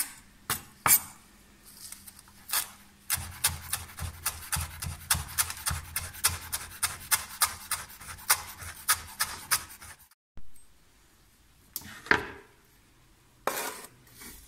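Chef's knife chopping fresh parsley on a wooden cutting board: a few separate cuts, then a quick, even run of chops lasting several seconds. Near the end the knife scrapes across the board.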